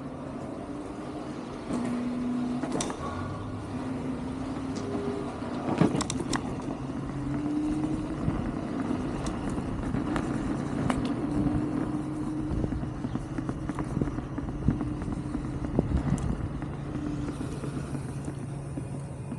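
Wolf King GT Pro electric scooter riding along, its hub-motor whine slowly rising and falling in pitch with speed, over steady wind and tyre noise with occasional knocks and rattles from bumps.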